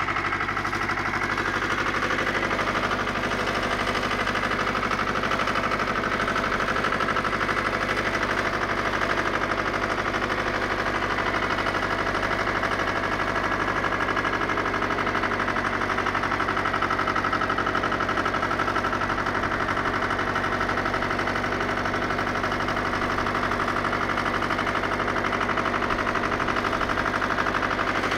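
Pasquali 996 tractor's air-cooled Lombardini LDA 672 diesel running steadily under load, driving a Galucho rotary tiller through the soil.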